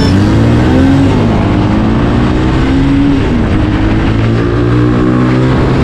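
A 250 cc motorcycle accelerating hard from a standing start in a drag race. The engine note climbs and drops back with each upshift, several times.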